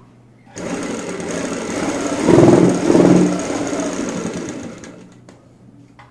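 Sewing machine stitching through a gathered elastic waistband, a fast run of needle strokes starting about half a second in, louder and faster in the middle, then slowing and stopping about five seconds in.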